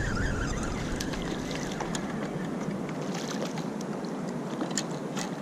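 Steady rush of moving river water around a kayak, with wind rumble on the microphone that drops away about two and a half seconds in and a few faint ticks.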